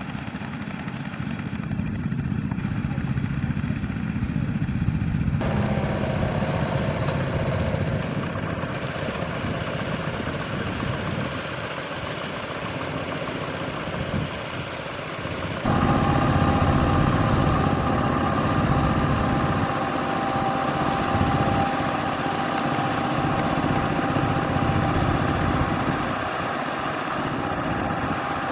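Tractor engine running steadily under load. Its tone and loudness change suddenly about five seconds in and again about sixteen seconds in, and it is loudest after the second change.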